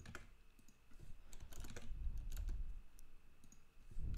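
Typing on a computer keyboard: a run of irregular, fairly quiet keystrokes as code is entered.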